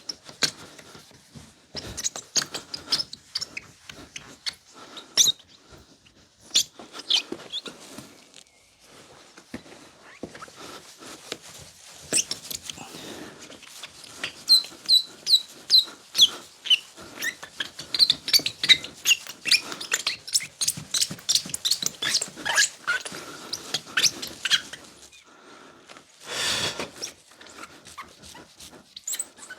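Cloth or pad being rubbed hard by hand over a plastic headlight lens while polishing it: many quick, high squeaks and scrapes in rapid strokes, with one longer swishing wipe near the end.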